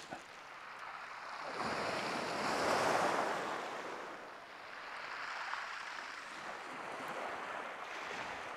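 Waves breaking and washing up a shingle beach. The wash swells to its loudest about three seconds in, fades, then a smaller wave comes in around five seconds.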